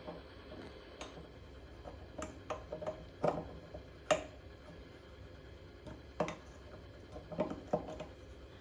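Irregular light clicks and knocks of small tap fittings being handled and set down, about ten in all, with the sharpest two near the middle.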